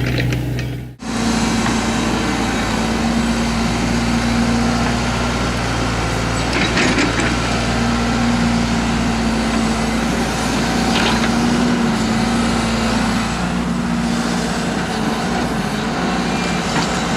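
Excavator's diesel engine running steadily under load, with a few brief metallic clinks. The sound cuts out sharply about a second in and starts again.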